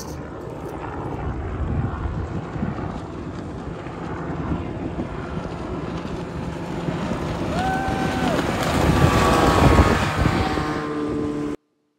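Outboard speedboat with a 1979 Mercury 90 hp six-cylinder two-stroke running at speed across open water. It grows louder as it passes close by, with wind on the microphone. The sound cuts off suddenly near the end.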